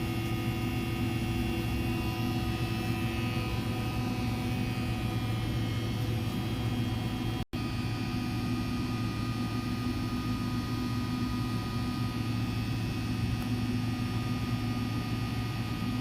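Microwave pyrolysis reactor running with a steady electrical hum and several constant tones, broken by a split-second dropout about halfway through.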